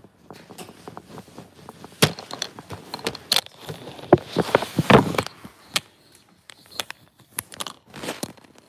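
Footsteps and a phone being handled against a jacket: irregular knocks, scrapes and rustles, loudest about two seconds in and again around four to five seconds in.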